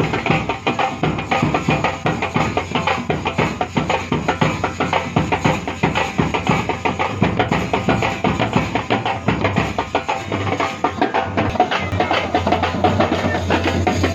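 Music with fast, dense drumming that keeps a steady beat.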